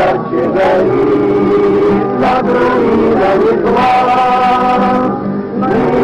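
A group of people singing together, men's voices prominent, in long held notes.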